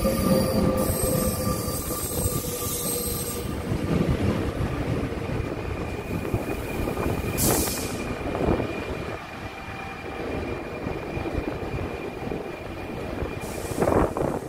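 Double-decker electric commuter train rolling slowly into the station along the platform. Its running noise and rumble carry a slightly falling tone in the first few seconds, then a thin steady squeal. There are short hisses about halfway and again near the end.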